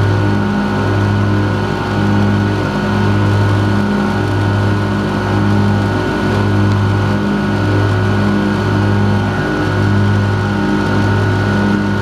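Gravely lawn mower's engine running steadily at a constant speed, its low hum dipping briefly in a regular pulse about once a second.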